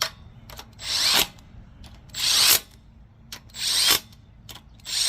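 Tool running down the crankcase cover bolts of a Honda GX160 engine: four short bursts of tool noise about every second and a quarter, with small clicks between, as each bolt is tightened in a star pattern.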